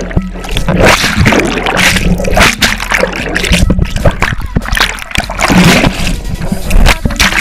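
Water splashing and churning around a camera as it moves underwater and through the surface, with bursts of bubbles.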